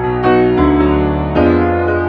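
Background music: piano playing held chords that change every half second to a second.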